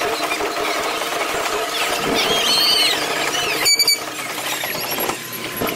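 Parade street sound played back at four times speed: squeaky, chipmunk-like voices over a sped-up hum of passing car engines, with a brief sharp clatter about two-thirds of the way in.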